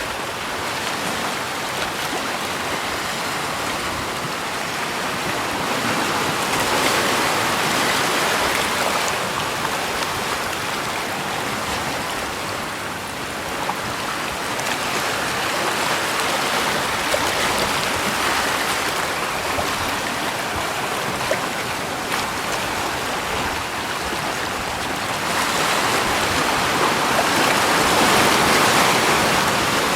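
Rushing water, an even hiss that swells louder every several seconds and is loudest near the end.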